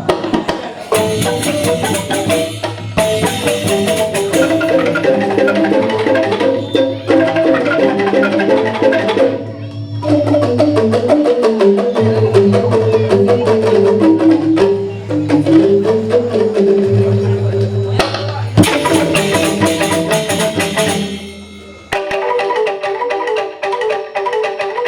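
Balinese joged bumbung ensemble playing: fast, interlocking melodies on bamboo xylophones over drums and percussion, with a steady low bass beneath. The playing thins briefly about ten seconds in and again about twenty-one seconds in.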